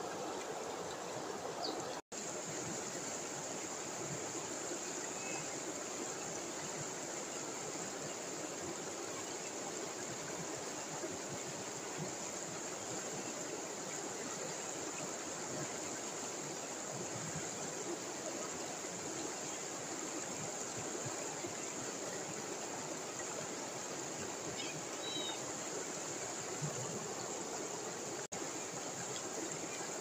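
River water pouring over a low weir and through rapids: a steady, even rush of water, broken by two very brief dropouts.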